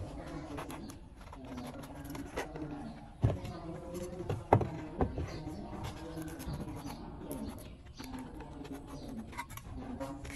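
A hand working at the centre of a bass loudspeaker cone, around its voice coil, with small clicks and two sharp knocks about three and four and a half seconds in. A low, wavering pitched sound runs underneath.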